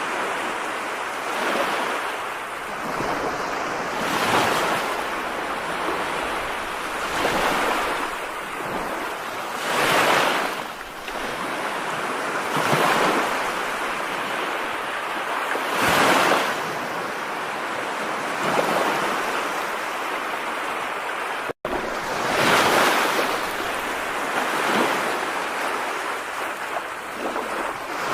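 Heavy rain, a dense steady rush that swells and eases in surges every few seconds. It cuts out for an instant about two-thirds of the way through.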